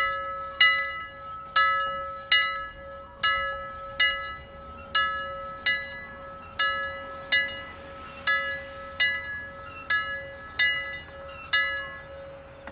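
Title music of bell-like struck chime notes, one about every 0.7 seconds, each ringing and fading, over a steady held tone.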